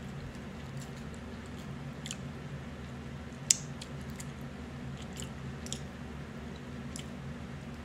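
Crab leg shells being cracked and picked apart by hand: small clicks and crackles, with one sharp snap about three and a half seconds in, and chewing. A steady low hum runs underneath.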